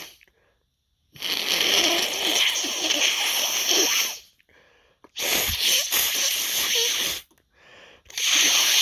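A person blowing their nose hard into a tissue: three long blows, the first lasting about three seconds and the others about two, with short pauses between.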